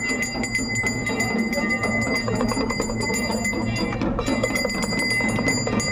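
Devotional music of the Ganga aarti with bells ringing, over a steady din of a crowd.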